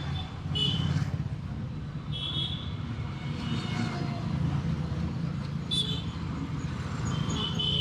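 Road noise of a motorcycle ride picked up by a mic inside the rider's helmet: a steady low engine and wind rumble. A few brief high-pitched tones come in and out over it.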